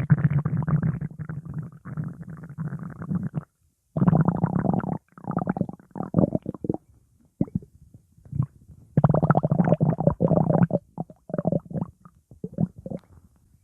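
Stomach growling in several bursts with short pauses between them, the longest lasting about three seconds at the start.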